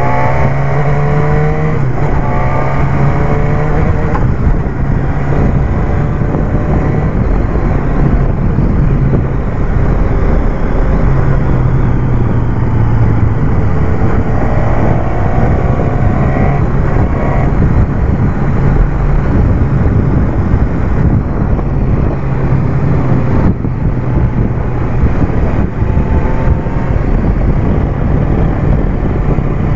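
BMW S1000R's inline-four engine running under way, heard from the rider's position. The revs rise as it accelerates, at the start and again about a quarter of the way in, then settle to a steady cruise.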